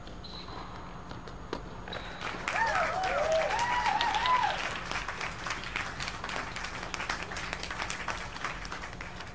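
Spectators clapping after a point in a tennis match, starting about two seconds in and tailing off gradually, with an excited voice cheering over the first couple of seconds of the clapping.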